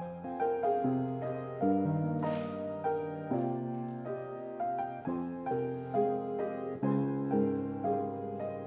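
Piano playing the slow introduction to a solo song: held chords under a melody line, a new chord about every half second to second.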